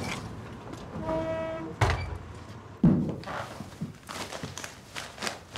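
Door sounds: a short steady electric buzz about a second in, like a door-release buzzer, then a sharp knock and, a second later, a heavier thud of a door.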